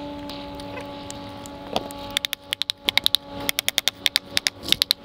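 Metal drip edge flashing being bent down by hand along a roof edge, crackling in a quick, irregular run of sharp clicks that starts about two seconds in and grows louder toward the end, over a steady hum.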